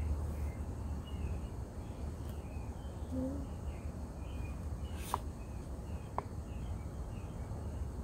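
Garden ambience: small birds chirping again and again over a steady low rumble. Two short sharp clicks come about a second apart, past the middle.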